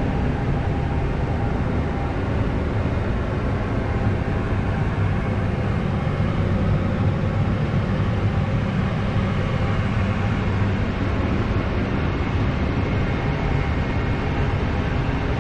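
Case Puma 175 tractor running steadily at working speed, pulling a Case RB465 round baler that is picking up and baling hay: a continuous low mechanical drone.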